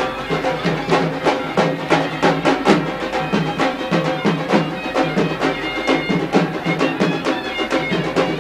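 Devotional kirtan music played loud: fast, even hand-drum strokes with short held melodic notes over them, and no words.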